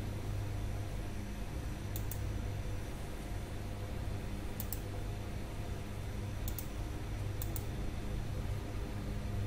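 Computer mouse clicking four times, each click a quick double tick, over a steady low electrical hum.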